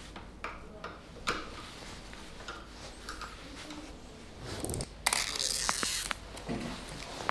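Workshop handling noises of parts being fitted to a dirt bike: light clicks and knocks, then a hiss lasting about a second, five seconds in, which is the loudest sound.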